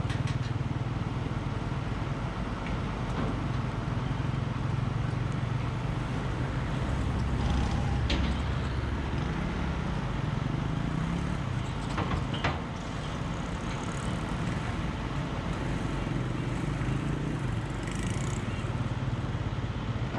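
Engine of a truck-mounted drilling rig running steadily under load, with a couple of short metallic knocks partway through.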